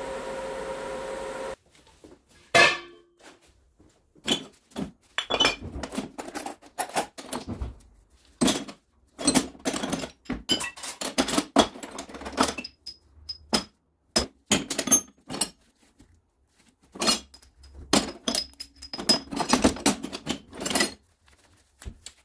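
A steady motor hum cuts off about a second and a half in. It is followed by irregular knocks, clinks and clanks of scrap metal parts being handled and tapped, the loudest a sharp clank just after the hum stops.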